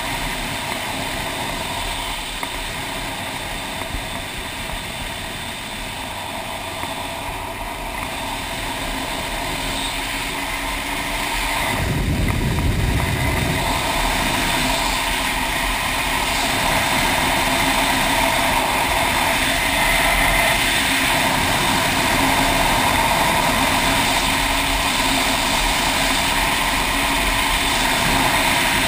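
Motorcycle engine running steadily with wind rush while riding on the road. It gets louder about twelve seconds in, with a brief low surge, and stays louder after.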